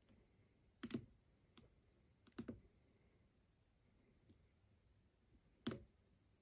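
Lock being picked: a few sharp, irregularly spaced clicks of metal picking tools working in the lock, with a small cluster about two and a half seconds in and one more near the end, over faint hiss.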